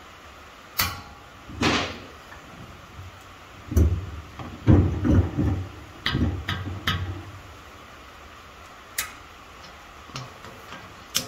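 Clicks and clunks of steel locking pliers being handled and clamped near a heated stud: two sharp clicks in the first two seconds, a run of dull knocks about four to seven seconds in, and a few lighter ticks near the end.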